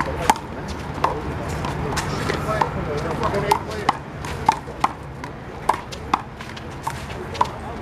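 Handball rally: a rubber handball smacked by hands and slapping off the wall and court, about ten sharp cracks at uneven intervals, with faint voices behind.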